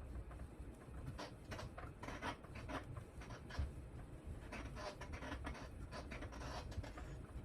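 Faint, irregular scratching, rubbing and small clicks of hands working wiring and plastic connectors on an RC helicopter frame.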